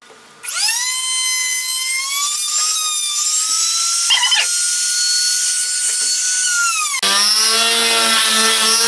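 Electric trim router switched on about half a second in, its high motor whine climbing quickly to full speed and running free. About seven seconds in the pitch drops abruptly and a deeper sound joins it as the bit is pushed into the MDF, cutting a groove.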